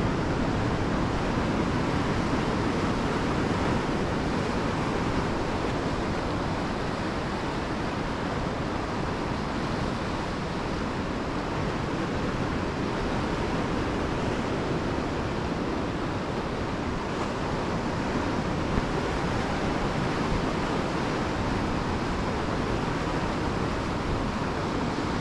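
Ocean surf washing in over a rocky shoreline, a steady rush of breaking waves, with wind on the microphone.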